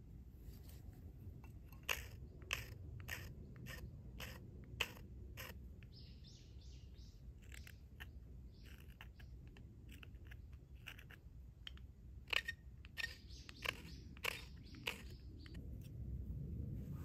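A knife shaving curls from a stick of split wood to make a feather stick: short, sharp scraping strokes, roughly one a second. Small birds chirp in short runs between the strokes.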